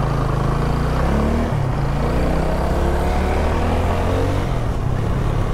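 Motorcycle engine pulling under way. Its pitch climbs, drops sharply about a second and a half in as it shifts gear, then climbs again and drops once more near the end.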